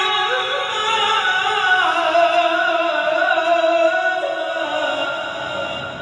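Male qari reciting the Qur'an in melodic tajwid style, holding one long ornamented note that wavers and steps down in pitch, then fades near the end.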